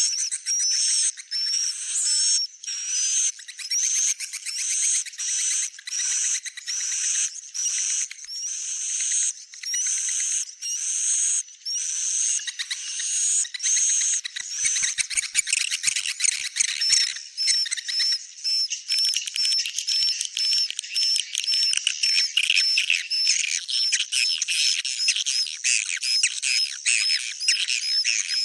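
Swiftlets chattering: dense, rapid, high-pitched trills and clicks in bursts of about a second with short gaps, threaded with brief rising whistles. About halfway through the bursts run together into a more continuous chatter.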